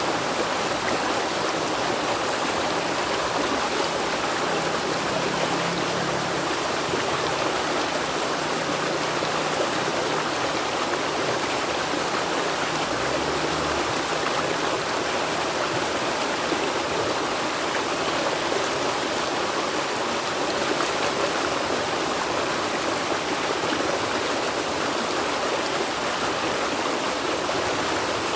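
River water flowing over rocks: a steady, even rushing with trickling and gurgling, no single event standing out.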